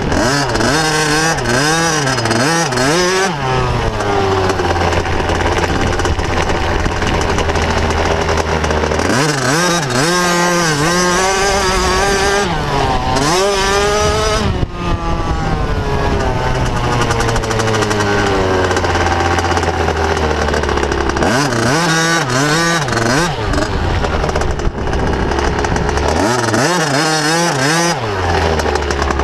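Motocross bike engine recorded from a camera mounted on the bike, its revs rising and falling again and again as the rider works the throttle and shifts gears, with a couple of longer stretches held at steady revs.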